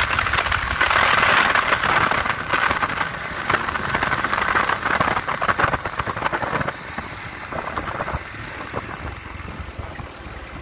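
Motorcycle on the move, heard from the rider's position: wind rushing and buffeting over the microphone, with the engine running underneath. It fades gradually toward the end.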